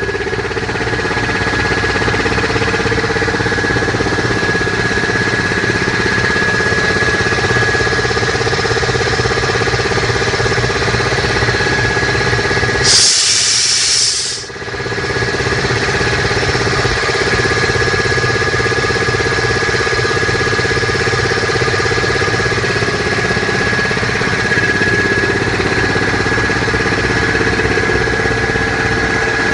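SHIMGE 10 HP air compressor running steadily, with a steady high whine over a low hum. About 13 seconds in, a loud hiss of air lasts about a second and a half, then the compressor runs on.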